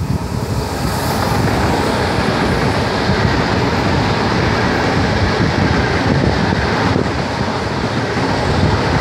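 Trenitalia Frecciarossa 1000 high-speed electric train passing close by, a loud, steady rush of wheels on rail and moving air that builds over the first second as the train arrives.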